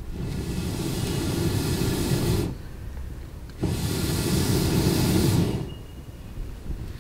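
Two long blows of air through a fire-blowing pipe into a campfire, each a steady rushing hiss of about two seconds, with a pause of about a second between them.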